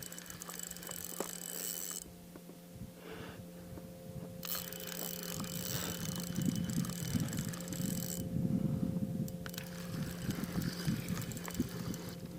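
Fishing reel clicking as it is cranked, in stretches with two short pauses.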